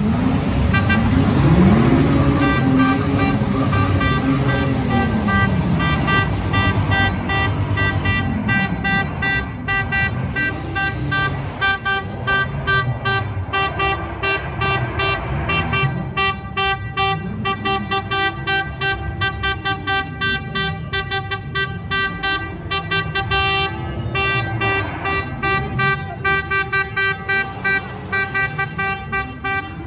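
Sports car engine revving up and falling back every few seconds, under a held set of steady horn-like tones that break into a fast, even pulse from about eight seconds in.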